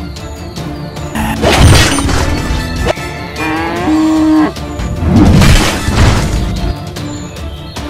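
Cartoon sound effects over steady background music: a bull's long moo about three seconds in, between two loud crashing hits.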